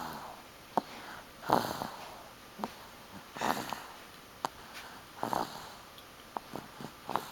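Baby snoring, one noisy breath about every two seconds, with small clicks in between.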